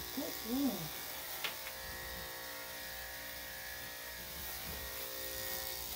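Electric dog-grooming tool's motor running with a steady buzzing hum, then switched off abruptly at the end.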